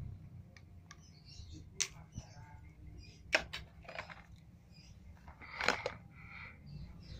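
Scattered sharp clicks, taps and rustling from hands handling a homemade rubber-band toy pistol and a cardboard box. The loudest click comes about halfway through.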